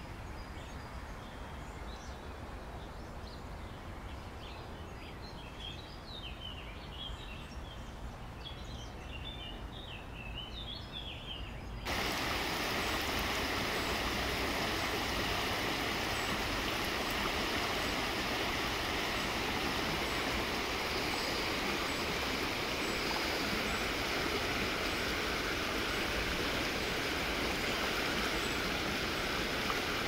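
Softer running water with small birds chirping, then an abrupt cut about twelve seconds in to much louder, steady rushing water of a waterfall and river.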